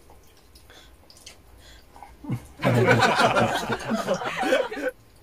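A person slurping a mouthful of instant noodles from Korean army stew: one long, loud, wet slurp that starts about two and a half seconds in and lasts about two seconds.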